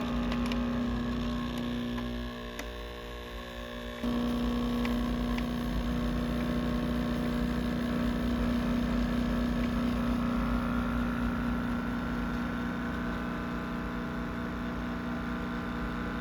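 Steady mechanical hum of a running motor, with one strong low tone and evenly spaced overtones; it drops in level about two seconds in and comes back up about four seconds in.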